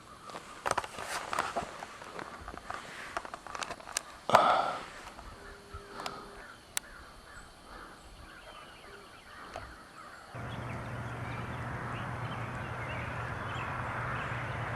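Footsteps crackling through leaves and twigs in the woods, with a loud harsh bird call about four seconds in. About ten seconds in a steady low hum with hiss starts abruptly.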